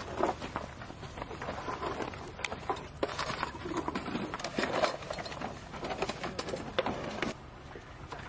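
Irregular clicks and light knocks of equipment being handled outdoors, growing quieter about seven seconds in.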